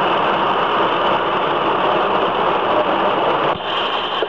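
ZJM 9 riveting machine running steadily, a loud even machine hum and hiss with no separate strikes, dipping briefly about three and a half seconds in.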